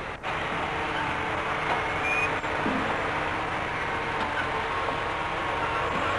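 Heavy site machinery, the crawler crane's engine, running steadily as a continuous mechanical drone with a faint hum through it. The sound drops out for an instant just after the start, at a tape cut.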